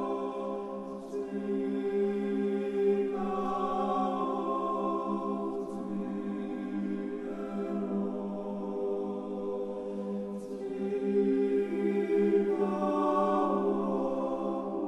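Church choir singing a slow, unaccompanied Orthodox chant in held, several-voice chords that shift every few seconds.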